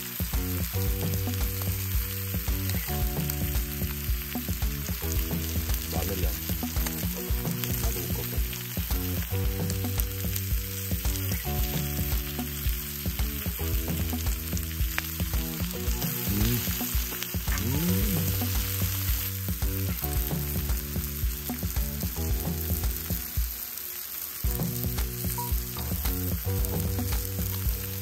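Pork belly (samgyeopsal) sizzling as it fries, a steady hiss, over background music with held notes that change every second or so.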